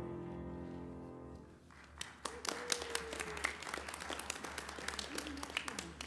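The final chord of a piano prelude ringing out and fading over about a second and a half, then the congregation applauding for about four seconds.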